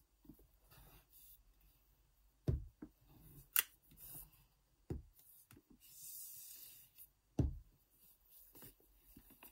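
A shrink-wrapped cardboard iPad Pro box handled on a desk: three dull knocks against the table, a sharp click a little after a third of the way in, and a soft rubbing hiss of hands sliding over the plastic wrap a little past halfway.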